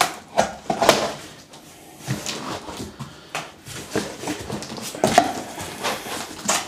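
Cardboard box and packing being rummaged through by hand: irregular rustles, scrapes and knocks, the sharpest about a second in and again about five seconds in.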